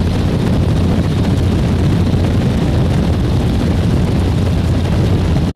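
Small single-engine propeller plane's engine running steadily, heard close from outside the fuselage, with a constant low hum under a heavy rush of propeller wash and wind.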